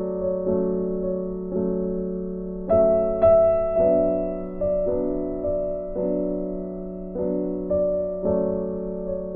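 Piano music: gentle chords struck about every half second to second over a held low note, each fading before the next.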